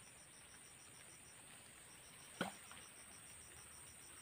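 Insects chirping in a rapid, even pulse over a steady high buzz, with one sharp click about two and a half seconds in.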